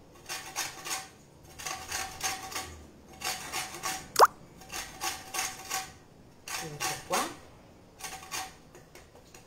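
Lemon zest being grated on a handheld metal box grater: bursts of quick rasping strokes, metal scraping over the peel, several strokes a second. About four seconds in there is a single short, sharp squeak, the loudest sound.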